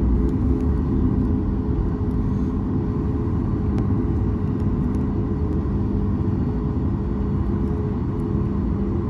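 Boeing 737 MAX 9 with its CFM LEAP-1B engines running, heard inside the cabin: a steady low rumble with two steady hum tones.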